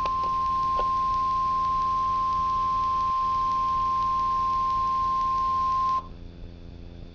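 NOAA Weather Radio's 1050 Hz warning alarm tone: one steady high-pitched beep that cuts off suddenly about six seconds in, the signal that a warning message is about to be read. A low hum and hiss from the receiver remain underneath.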